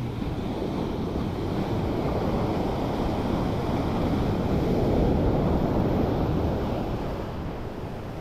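Sea waves surging against shore rocks in rough water, swelling to a peak midway and easing off, with wind buffeting the microphone.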